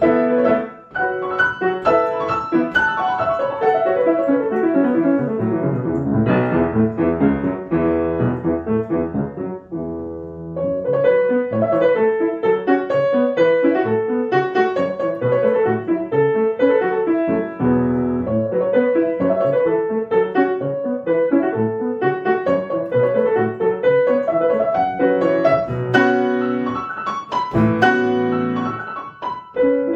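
Solo piano playing a fast, busy passage. A long descending run comes in the first few seconds, there is a brief softer moment about ten seconds in, then quick repeated chords and figures.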